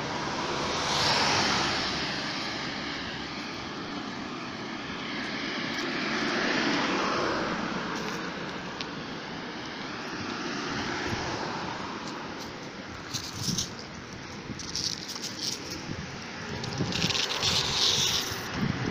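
A steady outdoor rush of road traffic that swells and fades three times as vehicles pass, with short, sharp rustling crackles in the last few seconds.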